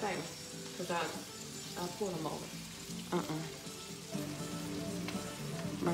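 Sliced squash, zucchini, bell pepper and onion sizzling in oil in a frying pan, stirred with a wooden spoon, under background music.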